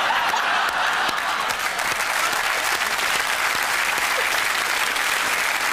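Studio audience applauding and laughing, a steady dense clapping that holds level throughout.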